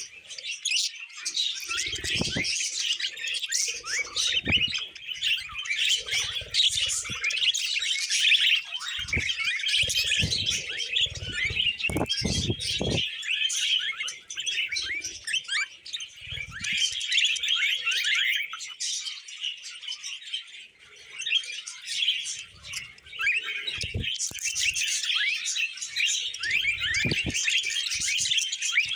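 A group of pet budgerigars chattering and warbling without a break, a dense mass of quick chirps, with scattered soft knocks underneath.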